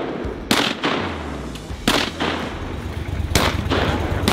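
Shotguns firing at ducks: three loud reports about one and a half seconds apart.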